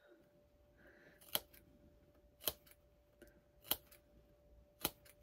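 Spring-loaded, self-opening scissors snipping through the seam allowance of a sewn fabric bunny ear: four crisp single snips, about one every second. The cuts clip the seam allowance so the ear turns inside out cleanly.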